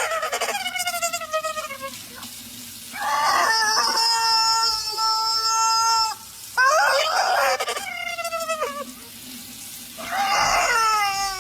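A chicken screaming in long, loud squawks, about one every two to three seconds. Most calls fall in pitch, and one in the middle is held steady for about three seconds.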